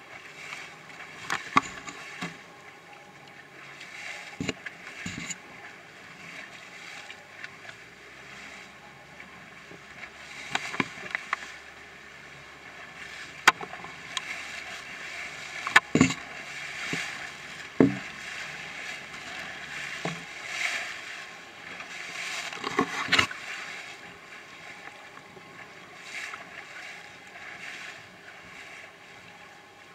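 Wind on the microphone and choppy water splashing around a small boat in a steady wash. Sharp knocks and thumps come every few seconds as the hull slaps the waves.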